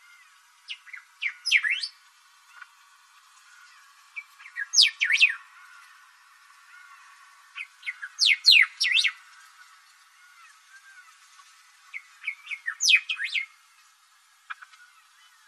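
Thick-billed saltator (bico-grosso) singing: four short song phrases about four seconds apart, each a quick run of high, sweeping notes.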